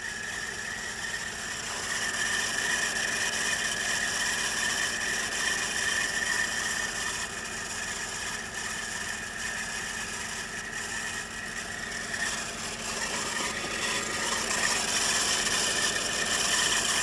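A 2003 Audi S8's 4.2-litre V8 running with a steady high-pitched whine over the engine noise: the sound of its accessory belt tensioner failing.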